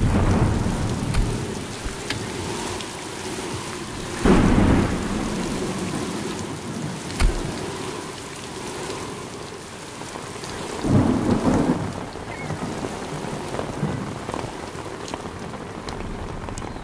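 Steady rain falling, with rolls of thunder: a loud rumble at the start, another about four seconds in, and a third about eleven seconds in.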